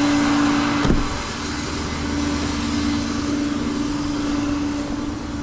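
Rollback tow truck running with its bed hydraulics engaged: a steady whine over the engine hum while the bed is lowered, with a single click about a second in.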